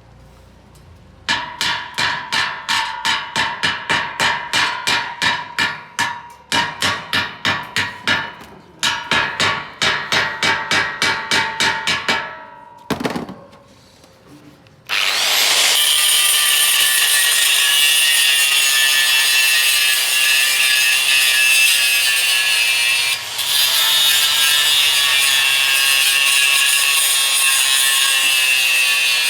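Hand-tool work on a workpiece in regular back-and-forth strokes, about two a second, in three runs with short breaks. From about halfway, a power tool runs steadily with a high whine.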